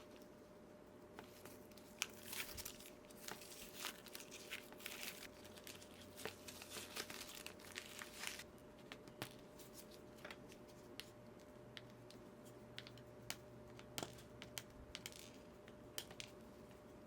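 Soldering a stained glass panel: hot solder and flux crackling and sizzling in dense spells for several seconds, then thinning to scattered sharp ticks, over a faint steady hum.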